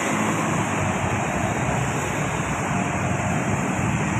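Steady roadside traffic noise: an even rush of passing vehicles and wind, with no horn sounding.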